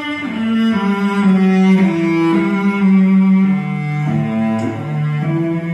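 Slow cello melody of held notes that change about once a second, played back from a Telefunken M15A reel-to-reel tape recorder through loudspeakers.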